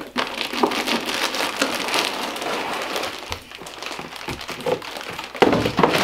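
Clear plastic zip bag crinkling and rustling as a packed tactical vest is handled and lifted out of a cardboard box, with a louder burst of rustling and knocking near the end as it comes free.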